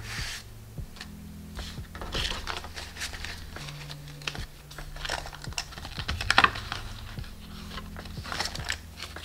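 US dollar bills rustling, crinkling and snapping as they are handled, counted and slipped into a cash envelope in a binder, with many short crisp ticks.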